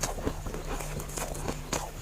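Close-up crunching of freezer frost being bitten and chewed: a quick series of short crunches.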